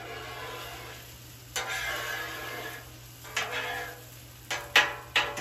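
Metal spatula scraping and shoving tater tots across a hot Blackstone steel griddle into melted butter, with the tots sizzling. Several sweeping strokes, with a few sharp clanks of the spatula on the griddle near the end.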